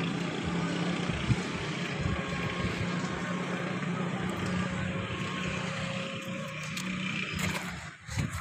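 A heavy engine running steadily, a low hum under a wash of noise, dying away near the end.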